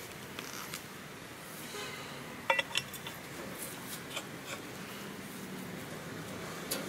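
Two short, sharp metallic clinks about two and a half seconds in, with a few fainter ticks, over a low steady background: a metal bar knocking against a mud-caked pipe as it is worked up out of the ground by hand.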